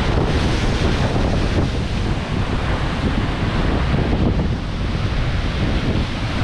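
Atlantic surf breaking and washing in rough waves, with strong wind buffeting the microphone.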